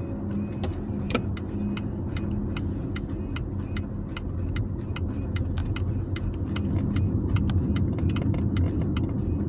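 Climate-control vent actuator behind the dash screen of a 2024 Volvo XC40 Recharge buzzing and clicking in a rapid, irregular run, heard through the dash vent over the low fan and the car's road rumble. The constant buzz is a fault in the actuator.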